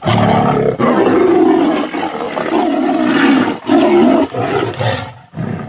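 Tigers roaring and growling as they fight, a run of rough calls with short breaks that dies down near the end.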